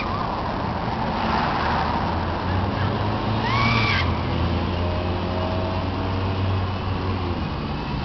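Road traffic: a vehicle's low engine rumble builds and fades over several seconds. A short high-pitched cry sounds about three and a half seconds in.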